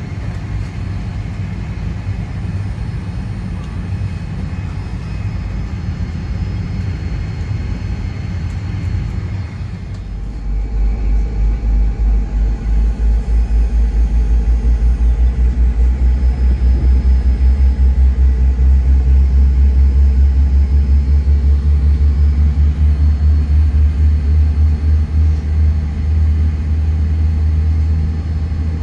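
Rolls-Royce Trent 1000 turbofan on a Boeing 787-9 starting up, heard from inside the cabin. A steady low cabin rumble gives way about ten seconds in to a much louder deep, pulsing rumble with a faint steady whine above it, building as the engine spools up and easing slightly near the end.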